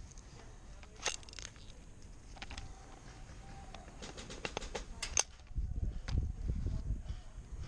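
Airsoft rifle shots: a single snapping shot about a second in, then a quick string of about ten shots between roughly four and five seconds in. Low rumbling noise follows near the end.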